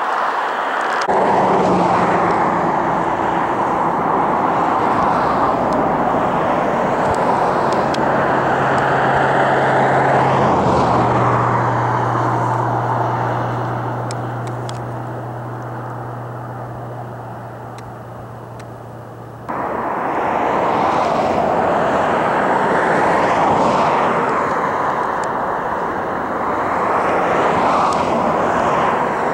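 Air tanker engines at high power on the runway, heard in edited shots. After a sudden change about a second in, a steady low propeller drone runs under heavy engine noise and fades somewhat, then about two-thirds through the sound jumps abruptly back to loud engine noise without the drone.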